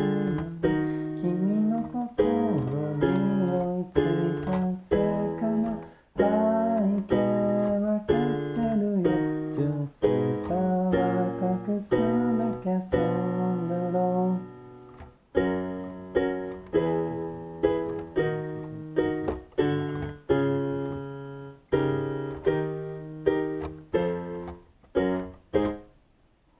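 Portable electronic keyboard played with a piano sound: chords and melody notes struck one after another, each fading. The playing stops just before the end.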